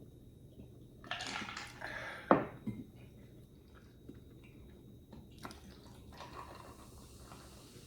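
Close-up eating sounds: about a second of chewing, then a sharp knock about two seconds in, the loudest sound, with a smaller one just after, and quieter chewing later.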